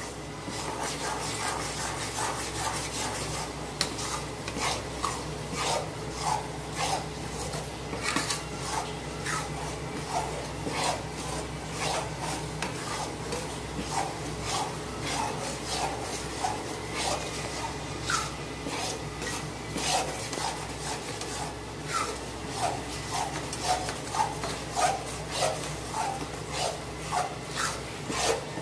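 A metal spatula scrapes around a metal kadhai in regular strokes, about two a second, stirring and turning gram flour (besan) as it roasts on a low flame.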